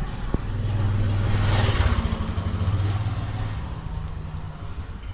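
A motor vehicle's engine hum and tyre rush pass close by, growing to their loudest about two seconds in and then fading away.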